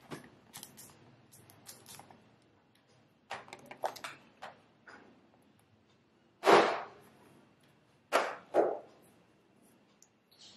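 Fridge magnets being handled and pressed onto a refrigerator door: scattered light clicks, then a louder knock about six and a half seconds in and two more knocks in quick succession about two seconds later.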